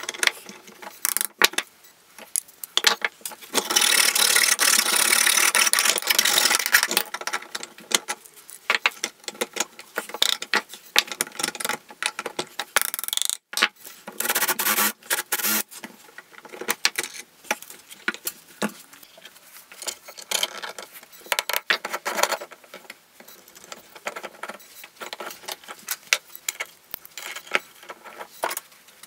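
Workshop handling sounds: an iron pipe fitting and metal parts clinking and knocking against a plywood vise jaw, with short stretches of a cordless drill boring into the iron fitting.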